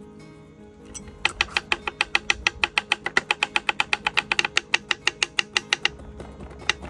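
A fast, even run of sharp taps or clicks, about seven a second for about five seconds, then one more tap near the end, over soft background music.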